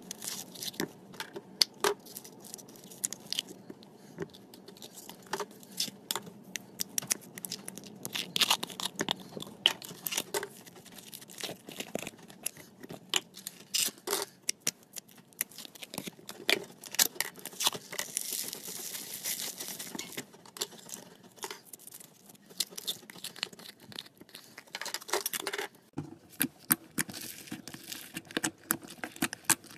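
Slime being squeezed, poked and stretched by hand, giving a dense run of sticky clicks, pops and crackles. The sound changes character about four seconds before the end.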